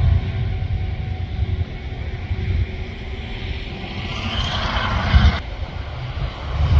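Crop-dusting airplane's engine droning at a distance, mixed with a low rumble of wind on the microphone; the engine grows louder again near the end.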